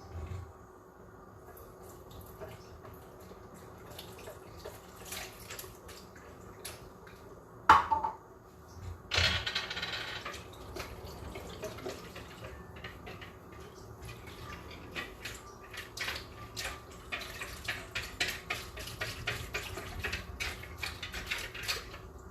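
Kitchen tap running for a couple of seconds to measure water, then a whisk clicking quickly against a small bowl as cornstarch and water are mixed into a slurry.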